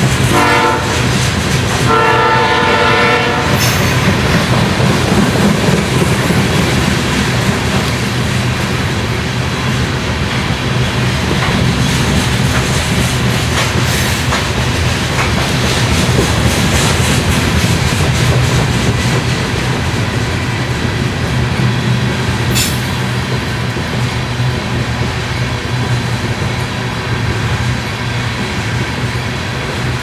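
A freight train's locomotive horn sounds two blasts near the start, a short one and then a longer one. Loaded covered hopper cars then rumble and clatter steadily past on the rails, with a few sharp clanks.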